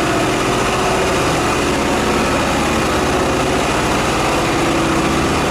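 A motor running steadily, with a constant hiss over its hum.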